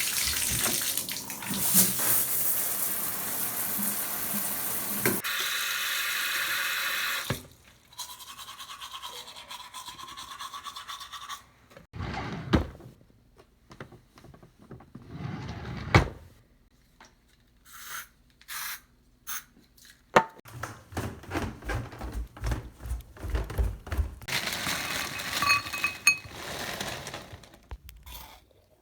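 A sequence of household sounds. It opens with about seven seconds of rushing, water-like noise, then quieter noise and scattered clicks and knocks. From about 20 seconds in comes a run of quick, repeated scrubbing strokes like teeth being brushed with a toothbrush.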